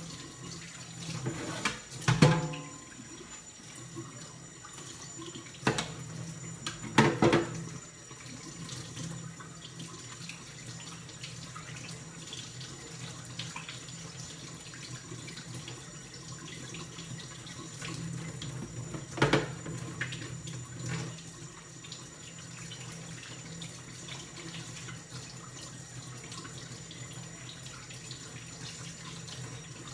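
Kitchen tap running steadily into a sink while raw pork steaks are rinsed under it, with a few sharp knocks and clatters, the loudest about two, seven and nineteen seconds in.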